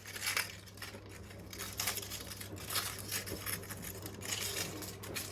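Irregular crinkling and crunching as the washing machine is torn apart and crushed by hand, in a series of short, uneven crunches.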